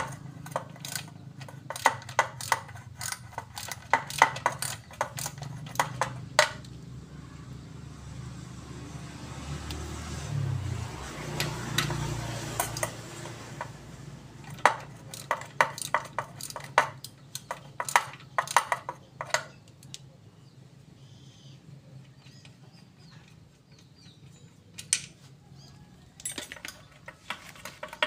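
Steel gearbox parts of a stripped Toyota Dyna manual transmission clinking and clicking as they are handled by hand, in clusters of sharp metal clicks. A low hum swells for a few seconds midway.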